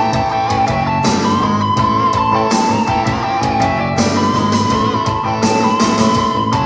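Instrumental music of short plucked-string notes in a pizzicato style, over a held high note that wavers slightly.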